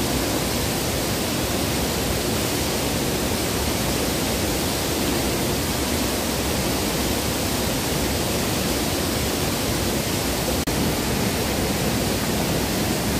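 River water rushing steadily over rocks in a shallow, fast-flowing stretch, with a brief drop in level about three-quarters of the way through.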